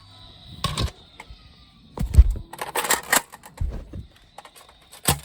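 Irregular clicks and knocks of plastic Nerf blasters being handled, the loudest knock about two seconds in, then a quick cluster of clacks and scattered small ticks.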